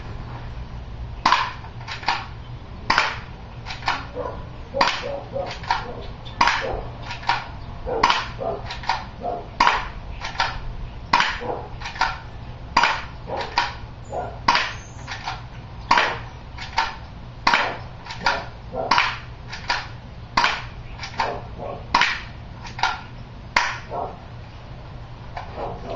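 Crosman P36 spring-action airsoft pistol firing shot after shot, each a sharp snap, about one a second with some in quick pairs, around thirty in all.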